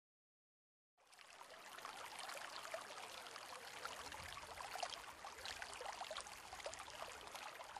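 Faint water sound: a steady hiss flecked with many small drip-like ticks, starting about a second in.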